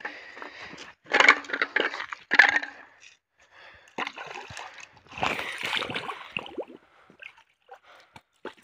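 Pond water splashing and sloshing as a hollow bamboo tube is dipped in and filled by hand: a few short loud splashes in the first three seconds, then a longer stretch of sloshing about halfway through, and a few small drips and clicks near the end.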